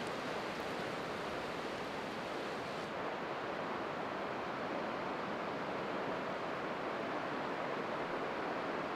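Steady rushing of flowing river water, an even wash of noise with no distinct events; the higher hiss drops away about three seconds in.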